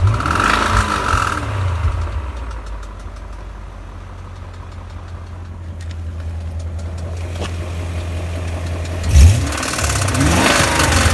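2001 BMW E39 M5's S62 V8 engine revved and settling back to idle, then revved up and down again about nine seconds in. It has a nasty knocking noise that the owner takes for connecting rod knock from a failing rod bearing.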